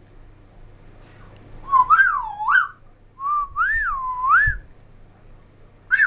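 African grey parrot whistling two warbling phrases, each about a second long, the pitch swinging up and down, with a short whistled note right at the end.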